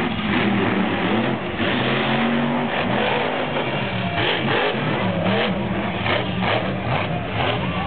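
Monster truck's supercharged V8 revving up and down again and again during a freestyle run, with rock music playing over the arena sound system.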